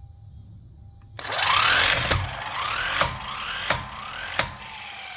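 Electric impact wrench from a Vevor 3-in-1 car jack kit running a lug nut on tight: its motor whine rises in four short spurts, each ending in a sharp knock, then winds down with a falling whine.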